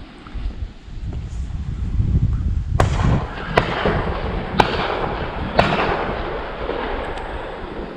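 Four sharp knocks or pops about a second apart, each trailed by a short hiss, over low wind rumble on the microphone.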